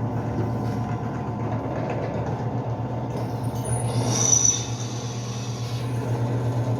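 Benchtop drill press (Forte G FG009) running with a steady motor hum while its bit drills a 2 mm metal plate. About four seconds in, the bit gives a brief high squeal as it cuts, then it drops back to the steady hum.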